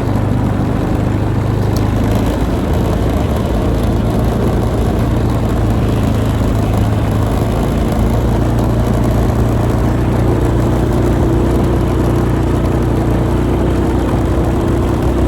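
A vehicle engine running at a steady speed while it tows a homemade wooden trail drag over the snow.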